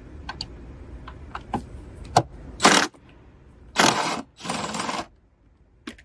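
A socket clicks onto a battery hold-down bolt a few times, then a 1/4-inch impact driver runs in three short bursts to loosen the 12 mm bolt.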